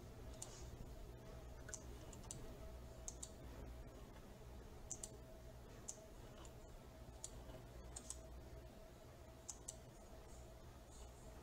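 Computer mouse clicking now and then, single clicks and quick double clicks, over a faint steady electrical hum.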